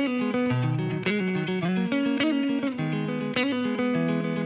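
Background music: sustained instrumental notes over a steady beat, with a sharp hit about once a second.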